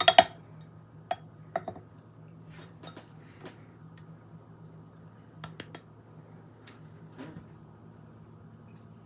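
Scattered light clinks and taps of kitchen utensils against a bowl, with one louder clink at the start, over a faint steady low hum.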